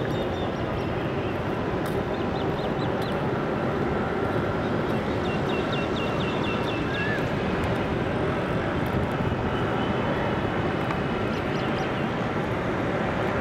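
Steady outdoor background noise with a low rumble, and short runs of faint bird chirps a few seconds in.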